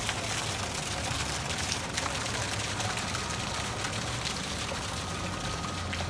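Fountain water jet splashing steadily into its pool, with a low rumble underneath.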